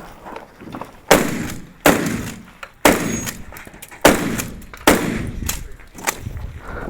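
Five gunshots fired in quick succession, about one a second, each with a short fading echo.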